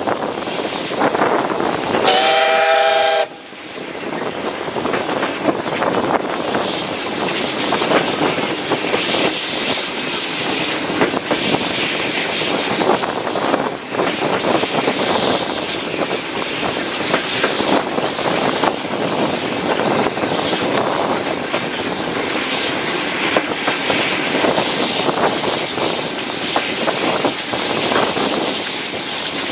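A steam locomotive's whistle gives one steady blast of about a second, two seconds in, and cuts off abruptly; it is a greeting to fishermen on the lake. Under it and afterwards, the steady rushing and rattling of the passenger train running on the rails.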